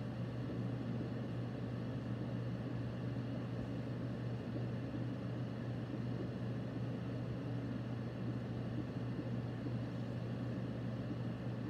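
Steady low hum with a faint hiss: classroom background noise, with no speech and no distinct events.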